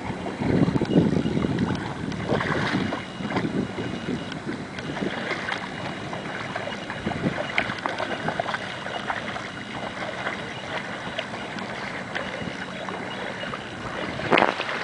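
An English bulldog and a barefoot person wading through ankle-deep seawater, with steady splashing and sloshing, and wind buffeting the microphone, heaviest in the first few seconds.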